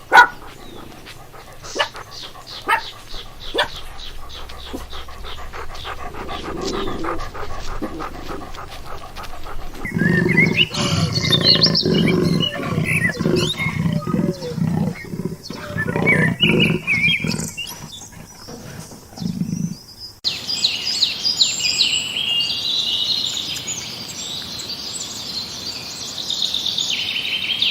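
Several different animals calling in turn, the sound changing abruptly about ten and twenty seconds in. The middle part holds the loudest calls, and the last part is a run of high-pitched calls.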